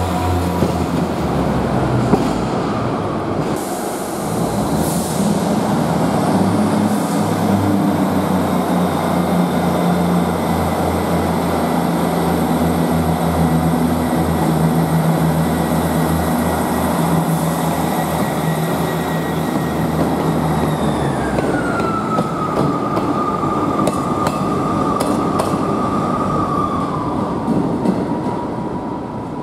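Class 158 diesel multiple unit pulling out of the station under power, its underfloor diesel engines running with a steady whine above them. About 21 seconds in the engine's low note fades and the whine drops in pitch, dropping again near the end.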